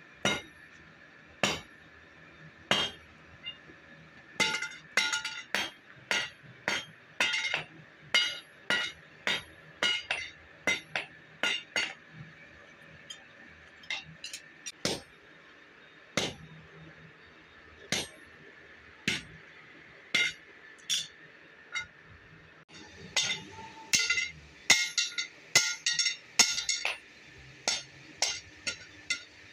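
Hand hammer striking a red-hot steel bar on an anvil, each blow a sharp metallic clink with a short ring. The blows come in irregular runs of about two a second with pauses between, and come faster and louder in the last few seconds.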